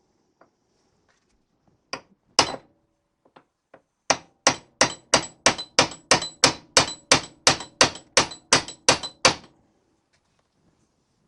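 Hammer tapping a new wheel stud into a classic Mini's rear hub: two blows, then a steady run of about sixteen metallic taps, about three a second, each with a short ring.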